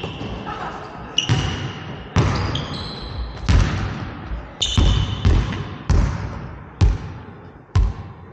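Basketball bounced on a hardwood gym floor about once a second, each bounce ringing out in the big hall, with a few short, high squeaks of sneakers on the court in the first half.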